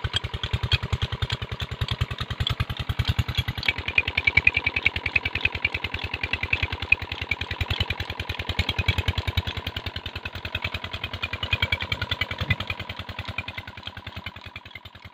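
Single-cylinder Petter diesel engine running steadily under load, driving a tube-well pump through a flat belt, with a rapid, even beat of firing strokes.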